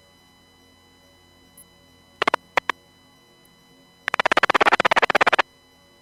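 Marine VHF radio receiver audio between transmissions: a faint steady hum, a few sharp clicks a little over two seconds in, then a loud rapid stuttering burst of pulses, about fifteen a second, lasting just over a second.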